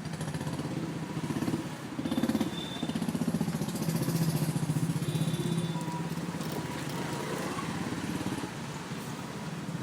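City street traffic: a vehicle engine running close by with a rapid pulsing note, growing louder about two seconds in and easing off later, over a steady traffic hum.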